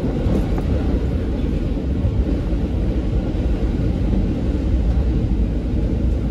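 Steady low rumble of a diesel railcar running along the line, heard from inside the passenger cabin.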